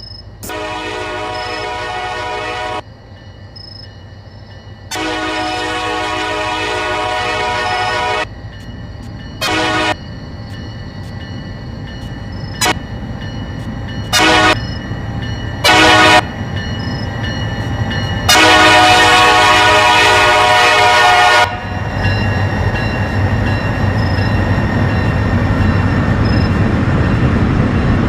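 K5LA five-chime air horn on a CSX EMD SD40-3 locomotive sounding a series of blasts: two long, a short one, a few quick toots, then a final long blast, close to the standard long-long-short-long grade crossing signal. After that the diesel locomotives rumble loudly and steadily as they come past.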